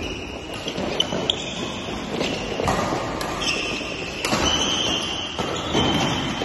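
Badminton rally: rackets striking the shuttlecock with sharp smacks several times, while players' court shoes squeal on the court floor, the longest squeals coming in the second half.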